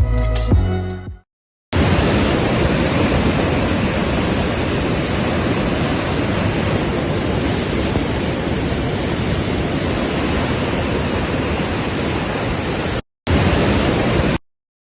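Loud, steady rushing noise with no pitch to it, starting abruptly after a short silence and cutting off abruptly twice near the end. Music fades out in the first second.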